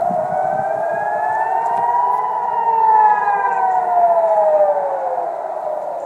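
Civil defence air-raid siren wailing as a rocket-attack warning, with more than one siren sounding out of step. The main wail rises in pitch for about two seconds, then falls slowly and eases off near the end.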